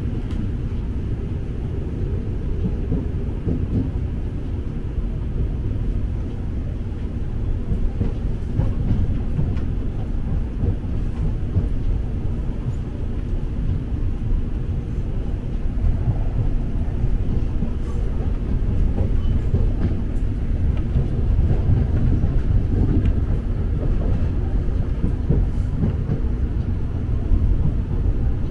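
KRL Commuter Line electric commuter train running steadily, a continuous low rumble of wheels on rails with a few faint clicks.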